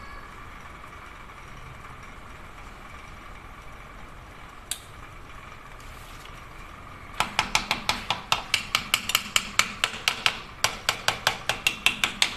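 Fast series of sharp metallic clicks, about five a second, starting about seven seconds in, from hand tools working on a HOWO diesel engine block while a piston is being fitted into its cylinder. A single click sounds a little before the series begins.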